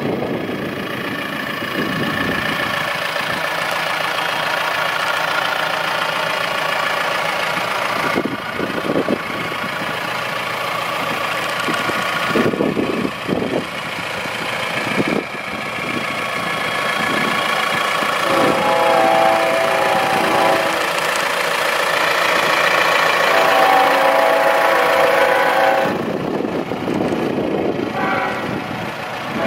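Mahindra Roxor's four-cylinder turbo-diesel engine idling steadily. In the last third, several steady horn-like tones sound over it, coming and going.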